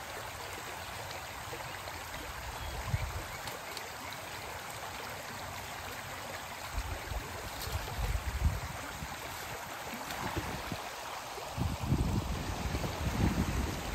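Swollen creek floodwater rushing steadily past, with a few short low thumps and rumbles about three seconds in, around the middle and again near the end.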